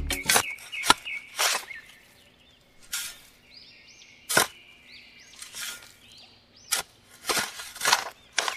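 Small shovel digging in sand: a series of short separate scoops and scrapes with pauses between them.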